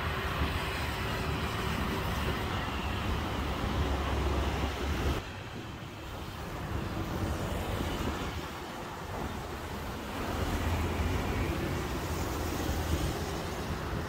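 Road traffic from a nearby street: a steady rumble of passing vehicles that drops suddenly about five seconds in and swells again a few seconds later.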